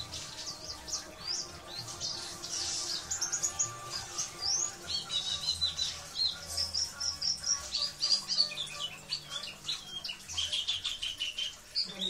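Caged white-eyes (pleci) singing in a quick, high twittering chatter of short rising and falling notes and trills, busiest in the middle and again near the end. A faint low steady sound runs beneath.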